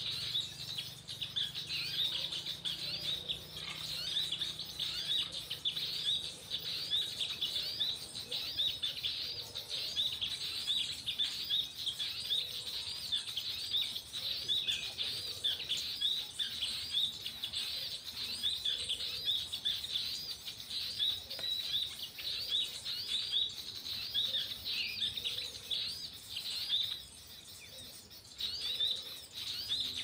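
High, rapid chirping of small birds, many short calls a second, with a brief lull near the end.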